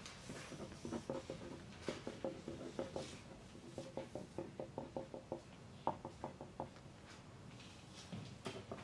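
Faint sound of pencils writing on paper in a quiet exam room: clusters of quick scratching and tapping strokes, several a second, with short pauses between them and one sharper tap about six seconds in.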